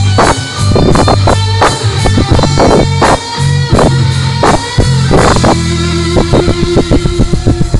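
A live rock band playing amplified electric guitars, bass and drums, with a steady drum beat; near the end the drum hits come faster.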